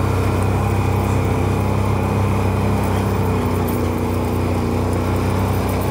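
Can-Am Renegade 1000R quad's V-twin engine running steadily under light load, heard from the rider's seat on the moving quad.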